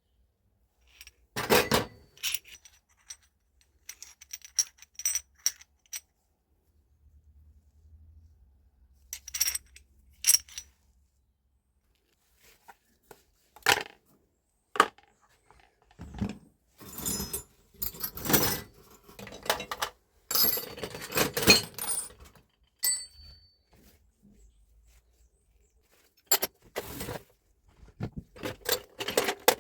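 Small metal parts and hand tools clinking, clattering and scraping as they are handled, in irregular bursts with the busiest stretch in the middle.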